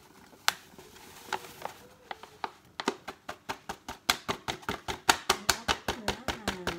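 Flour being shaken out of a paper bag into a stainless steel mixing bowl, the bag crackling and tapping. A few scattered clicks come first, then a fast run of sharp ticks, about five a second, from about halfway.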